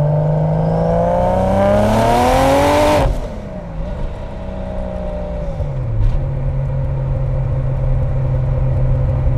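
Single-turbo Mk4 Toyota Supra's inline-six accelerating hard through its Blitz Nur-Spec exhaust, the pitch rising with a growing rushing hiss under boost, typical of a wastegate screamer pipe, then cutting off sharply about three seconds in. The engine note falls away, with a short sharp sound about six seconds in, then settles to a steady low drone.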